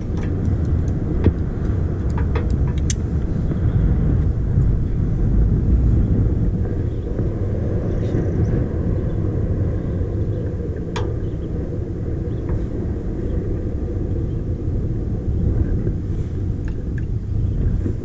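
Wind buffeting a head-mounted camera's microphone on an exposed cliff-top platform: a steady low rumble that rises and falls, with a few light clicks.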